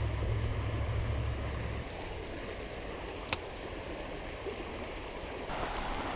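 Creek water running over rocks, a steady rushing. A low rumble on the microphone stops suddenly about two seconds in, and there are two short, sharp clicks, one near two seconds and a louder one a bit over three seconds in.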